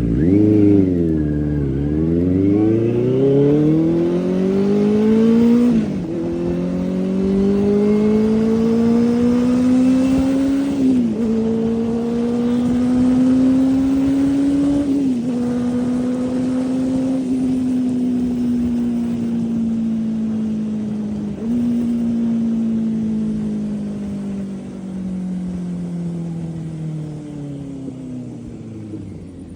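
Benelli 600i inline-four motorcycle engine accelerating hard through the gears: the engine note climbs and drops sharply at each upshift, four times, then falls steadily as the bike eases off and slows near the end.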